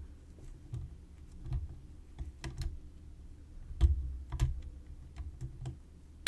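Hook pick probing and setting pins inside a DOM RS8 euro cylinder lock: a series of faint, irregular clicks and taps with low handling bumps, the loudest click about four seconds in.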